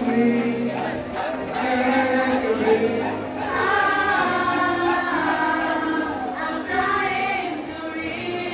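A group of singers performing a song together with guitar accompaniment, amplified through the PA of a large auditorium.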